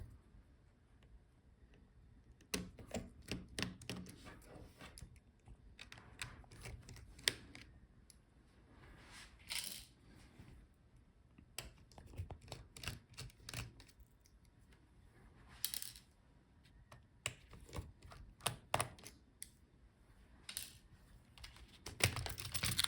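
Irregular small clicks, taps and light rattles of a laptop's internal parts being handled as its screws come out, its connectors are unplugged and its motherboard is lifted out, with a couple of brief rustles.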